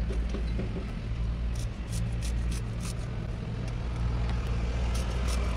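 Banana-blossom florets being sliced on a boti blade: quick crisp cutting strokes, about three or four a second, in a run around the middle and again near the end, over a steady low hum.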